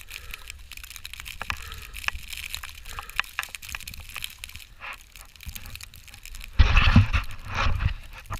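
Deep snow crunching and crackling in many small irregular clicks. About two-thirds of the way through, a louder rough rushing sound lasts about a second and a half.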